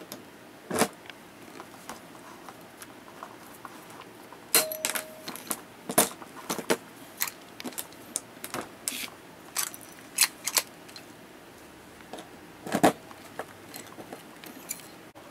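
Hand pop-rivet tool setting blind rivets: a string of sharp metallic clicks and snaps as the handles are squeezed and the rivets are set, the loudest about a second in, around five to six seconds in and near thirteen seconds. Between them come smaller clicks and clinks of rivets being handled.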